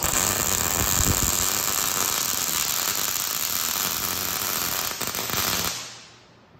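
Electric arc welding along a steel square-tube corner joint, laid over a tack in the middle of the joint. The arc starts abruptly, runs steadily, and stops about five and a half seconds in.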